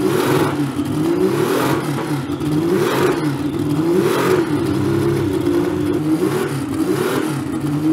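Porsche 936/77 Spyder's twin-turbo flat-six race engine being blipped by hand at the throttle linkage, its revs rising and falling in repeated swells about every second and a half.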